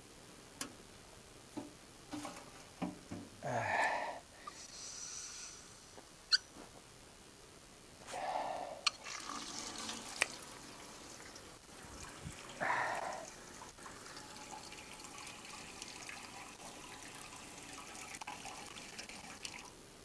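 Water splashing and pouring in three short bursts, about a third, halfway and two thirds of the way in, with scattered clicks and knocks of handling in between.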